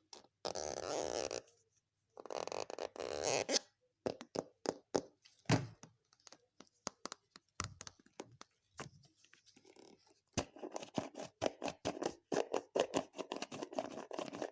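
Homemade clear slime being squeezed and worked by hand, with trapped air popping and clicking. Two longer squishes come first, then scattered sharp pops, and in the last few seconds a dense run of crackling clicks.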